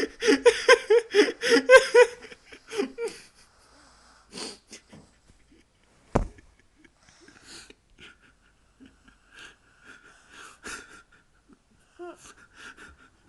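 A person's loud, wheezy vocal sounds in quick pulses for the first two seconds or so, then fading to scattered faint breaths. A single sharp click comes about six seconds in.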